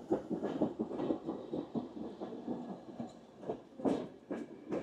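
Passenger train coaches running on the rails, heard through an open window: a steady rumble of wheels with irregular knocks, and a few sharper clacks over rail joints late on.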